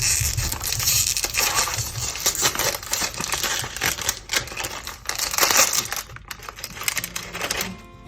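Kitchen knife clattering on a cutting board while chopping apple, a dense run of clicks and scrapes. Background music comes in near the end.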